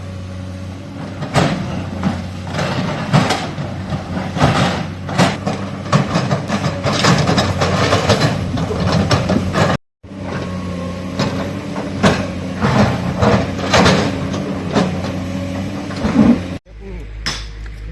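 Excavator's diesel engine running steadily under many sharp knocks and scrapes as it digs through rock and earth. The sound breaks off abruptly about ten seconds in and again near the end.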